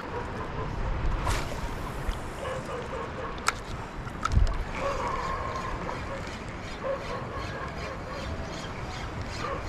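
Water sloshing with wind on the microphone, a sharp click about three and a half seconds in and a low thump just after. In the second half a spinning reel is wound in, with faint regular ticking.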